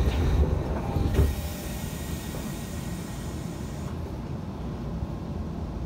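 Tokyo Metro Marunouchi Line 2000 series subway car with its doors closing: a knock about a second in, a hiss lasting a couple of seconds, then a steady low rumble inside the car as the train gets under way.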